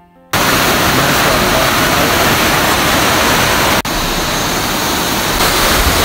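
Loud, steady rush of a waterfall, starting suddenly just after the start and broken once by a momentary dropout near the middle.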